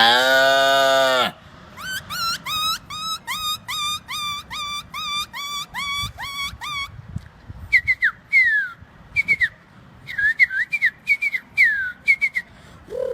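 A man imitating animal calls: a loud vocal moo ends about a second in, then whistled calls follow, first a quick series of short chirps that rise at the end, about two a second, then a few slower, scattered falling whistles.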